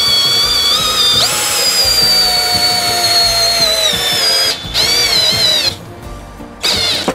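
Favourite DC 1802 PROMO 18 V cordless drill-driver driving a long screw into a wooden beam. The motor whine steps up about a second in, then sinks slowly in pitch as the screw goes deeper, and stops about four and a half seconds in. Two short trigger bursts follow, each rising and falling in pitch.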